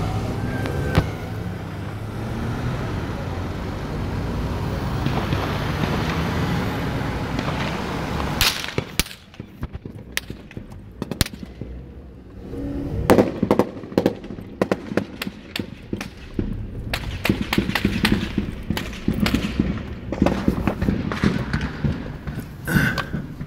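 Steady vehicle engine and road rumble, which drops away about a third of the way in. From then on, a long irregular run of sharp cracks of gunfire, some in quick clusters.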